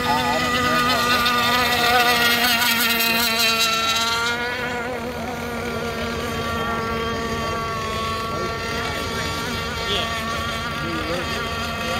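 Several 1/6-scale gas-powered RC race boats running at speed, their small two-stroke engines making a high, layered buzzing whine. The sound is loudest about two seconds in, then drops and turns duller at about four seconds as the nearest boat moves away.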